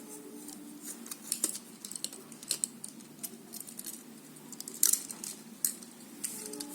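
Small irregular clicks, snips and crackles of plastic packaging ties being cut and pulled loose to free a diecast toy car from its box, with one sharper click about five seconds in.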